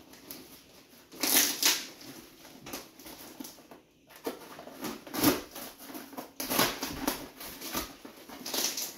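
A tightly packed cardboard parcel being torn open by hand, its tape and cardboard ripping and crunching in irregular bursts.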